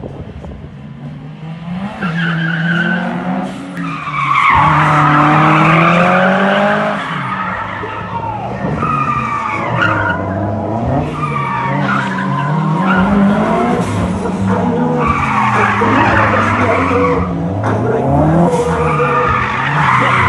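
Gymkhana cars, a Subaru and a Nissan Skyline, driven hard through a cone course: engines revving up and down over and over with throttle blips and gear changes, and tyres squealing as the cars slide through the turns. It builds up loud a few seconds in.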